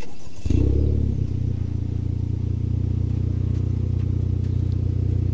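2020 Honda Accord's turbocharged four-cylinder engine running through a Rev9 stainless cat-back exhaust. It comes in with a brief flare about half a second in, then settles to a steady idle.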